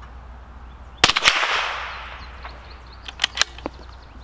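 Single shot from a Bergara B-14 .22 LR bolt-action target rifle firing Aguila Super Extra 40-grain rounds: a sharp crack about a second in, with a short echo. About two seconds later come a few quick metallic clicks as the bolt is worked.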